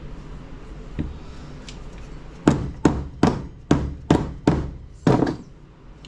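A hammer striking transfer-case parts: a light knock about a second in, then seven hard blows in quick succession, each with a short ring.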